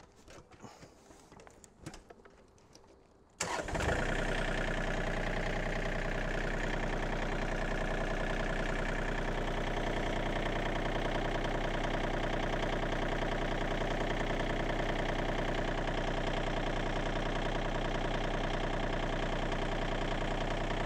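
John Deere 2032R compact tractor's three-cylinder diesel engine starting about three seconds in, then running at a steady idle. A few faint knocks come before it starts, as the driver climbs onto the seat.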